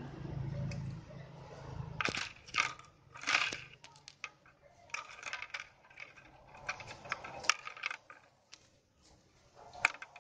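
Dry coconut-leaf midrib sticks (lidi) rustling and clicking against each other as they are bent and threaded by hand into a woven plate, in irregular bursts of crackling with sharp ticks.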